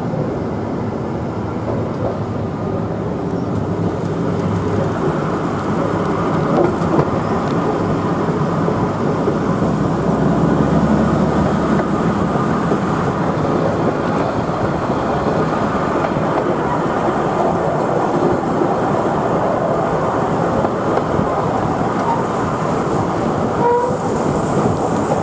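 QR 2000 class diesel rail motor running along the track, heard from inside the railcar: a steady rumble of engine and wheels on rail with some clickety-clack.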